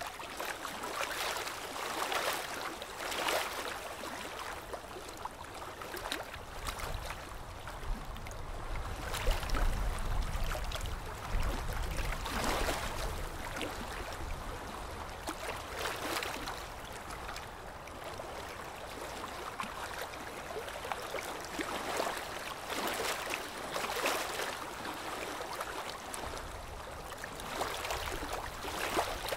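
Water splashing and washing against a boat's hull in repeated surges every second or two, with a low rumble swelling up for a few seconds in the middle.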